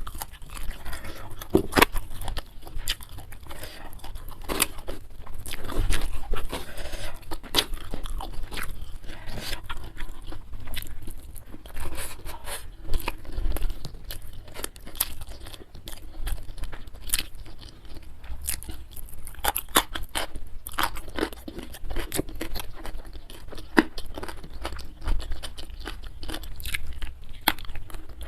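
Close-miked chewing of food, with frequent crisp crunches and bites coming at an irregular pace.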